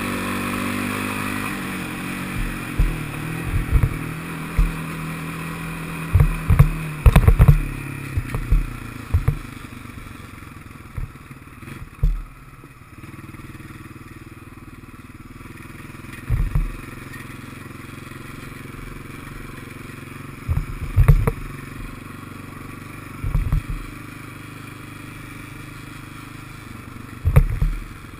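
Honda FourTrax ATV's single-cylinder engine running at a steady pace on a gravel trail, its note falling and settling quieter within the first ten seconds. Short low thumps and clatter come at irregular moments as the machine jolts over the rough track.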